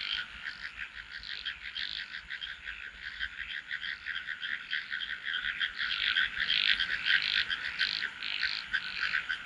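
A chorus of frogs calling together: dense, rapid pulsing calls that grow somewhat louder about halfway through.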